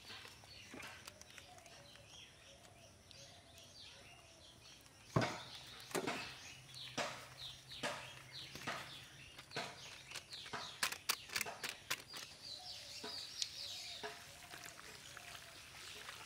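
Hands and a spoon working in a large iron wok of raw chicken and sliced onions: a sharp knock about five seconds in, then scattered clicks and taps as masala is spooned on and the mix is turned by hand.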